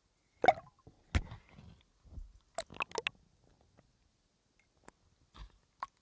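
Irregular clicks, knocks and watery squelches of a diver moving and handling gear in the water. The strongest knocks come about half a second and a second in, with a quick cluster of clicks around three seconds in.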